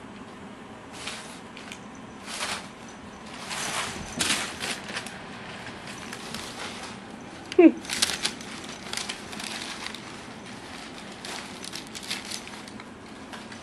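Crumpled brown packing paper rustling and crinkling in irregular bursts as kittens pounce and tumble through it. About seven and a half seconds in comes one short meow that falls in pitch, the loudest sound here.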